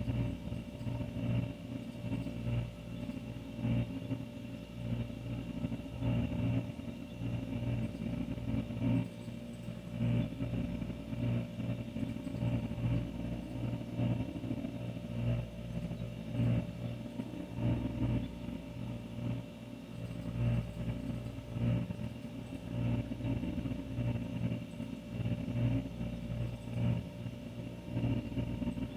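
An older refrigerator running, a steady low hum with a gently wavering loudness.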